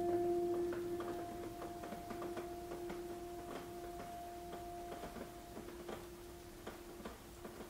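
A single held musical note, struck just before and slowly fading away, over faint, irregular ticking of raindrops.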